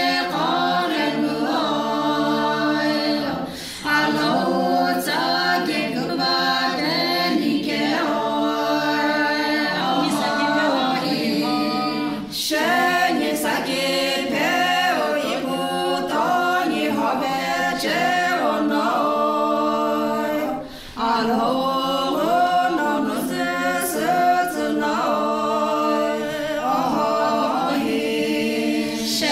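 A group of women singing unaccompanied, with no instruments. The song runs in long phrases that break briefly about every eight seconds.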